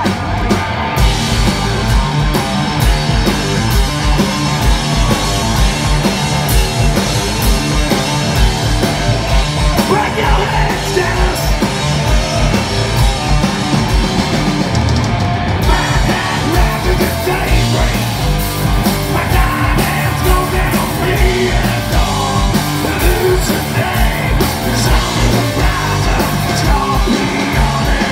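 Heavy rock band playing live at full volume, heard from the crowd: distorted electric guitars, bass and a steady driving drum beat, kicking in together at the start, with the cymbals coming in harder about halfway through.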